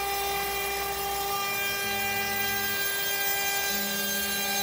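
CNC router spindle running while a small end mill cuts a groove through a sheet of brass for a clock wheel blank. A steady, high whine of several tones, with a lower tone that steps in pitch a few times.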